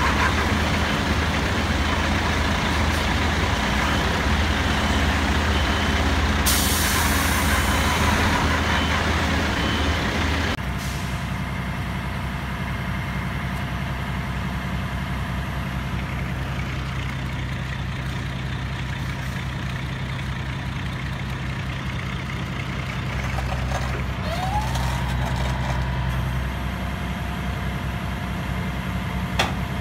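Heavy diesel truck engines running: first loud and hard, with a sharp hiss of air lasting about a second and a half. Then, from about a third of the way in, a steadier low engine hum of a heavy wrecker, with a brief rising and falling whine near the end.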